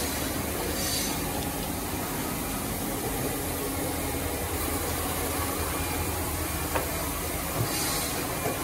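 Woodworking machinery running with a steady low hum and hiss. Short hisses come at the start, about a second in and again near the end, and a few light knocks come near the end.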